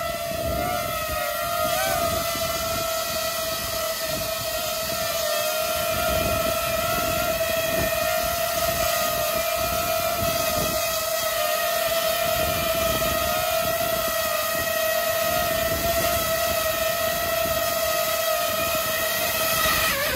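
DJI FPV quadcopter drone hovering close by, its propellers giving a steady high whine over a rushing of prop wash. It grows a little louder over the first few seconds as it comes nearer, and near the end the pitch wavers and dips as it sets down.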